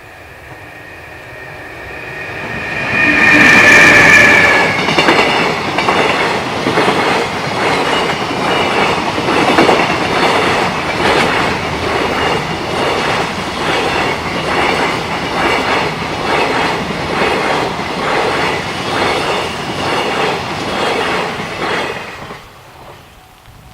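A freight train hauled by an EH500 electric locomotive passing over a level crossing. A steady high two-note tone swells to its loudest as the locomotive arrives, a few seconds in. Then the wheels clatter over the rail joints in a steady rhythm for about seventeen seconds, and the sound drops away as the last wagon passes.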